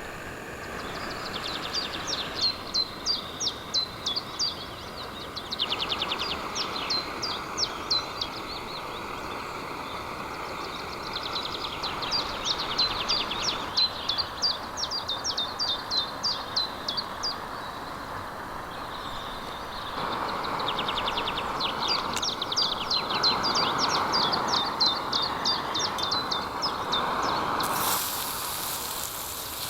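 A songbird singing about four phrases, each a fast run of high, sharply falling notes lasting a few seconds, over a steady rushing hiss that grows louder about two-thirds of the way through. Near the end a sharper, brighter hiss starts suddenly.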